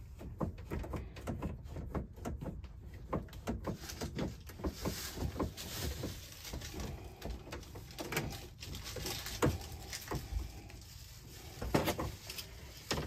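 Handling noise from faucet supply-hose fittings being hand-tightened: irregular light clicks and knocks, a few louder ones near the end.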